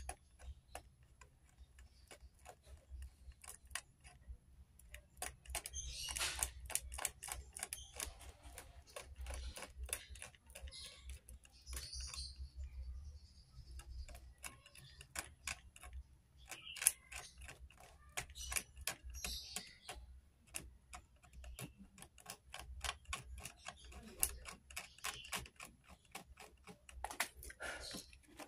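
A small blade scraping the coating off the copper traces on a Polytron LED TV's panel circuit board, a run of small irregular clicks and ticks over a low hum. It is the scraping stage before a trace is cut.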